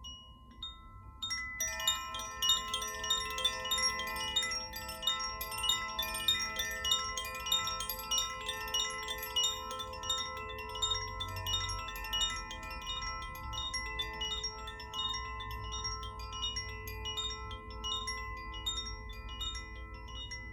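Koshi chime being swung, its clapper striking tuned metal rods in a loose, random pattern so that the notes overlap and ring on. After a few sparse notes at first, the chiming becomes dense and continuous from about a second and a half in.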